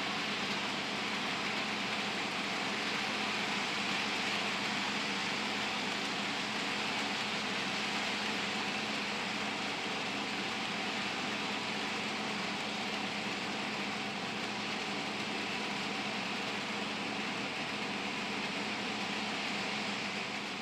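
HO scale model freight train running on the track: a steady whir and hiss of the cars' wheels rolling on the rails and the locomotive's small electric motor, with a faint hum underneath.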